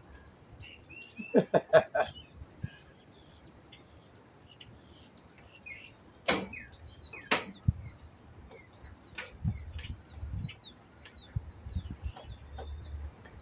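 Sharp knocks and clicks from thin sheet-metal shed panels being handled and fastened, a quick cluster about a second and a half in and two more single knocks in the middle. A bird chirps over and over in short high notes throughout, and wind rumbles on the microphone near the end.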